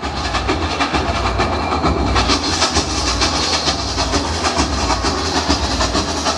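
Fast samba percussion music: a dense, driving drum rhythm with a heavy low beat and bright rattling highs.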